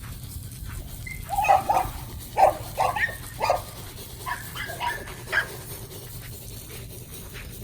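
Dogs barking in a run of short barks over the first two thirds or so, then falling quiet. The dogs are hungry and waiting for their food.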